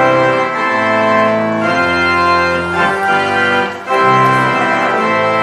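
Church organ playing slow, sustained chords that change every second or so, with a piano alongside.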